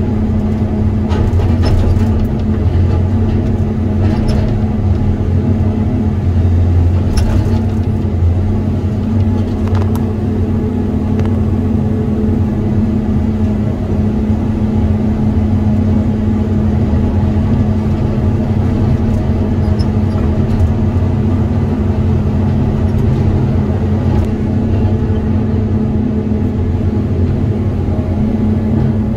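Diesel engine of a Tigercat 234 knuckleboom log loader running steadily at a constant speed, with a few sharp knocks in the first ten seconds or so.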